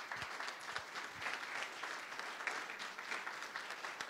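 A room full of people clapping: a sustained round of applause.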